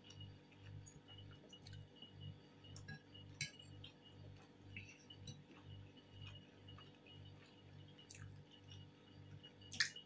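Quiet eating: faint chewing of fish and a few light clinks of a metal fork against a china plate, the loudest just before the end. A faint low throb repeats about twice a second underneath.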